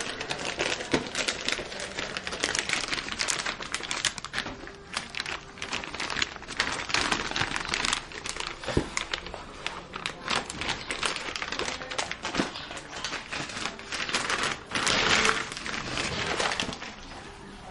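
Clear plastic bubble-textured anti-static bag crinkling and rustling as it is handled and pulled off a motherboard, a dense run of irregular crackles, loudest about fifteen seconds in.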